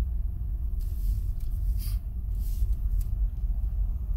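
Low, steady rumble of a vehicle driving, heard from inside the cabin, with a few short hisses in the first three seconds.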